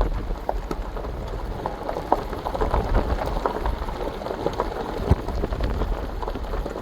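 Wind buffeting the camera's microphone: a steady low rumble with scattered crackles and clicks.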